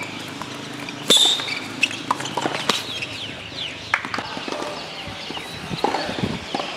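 Tennis being played on a hard court: sharp racket hits and ball bounces, footsteps, and short sneaker squeaks. The loudest hit comes about a second in.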